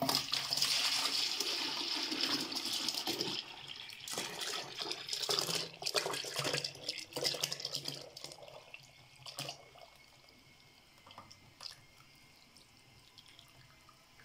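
Buttermilk poured in a thick stream from a clay jar into a plastic bucket, splashing steadily for about three seconds, then in uneven gushes until about eight seconds in, after which it thins to a few small drips and knocks.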